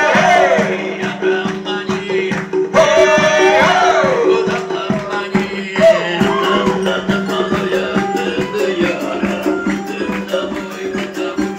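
Live band playing: a steady low drone under an even percussion rhythm, with two long sung phrases, one at the start and one about three seconds in.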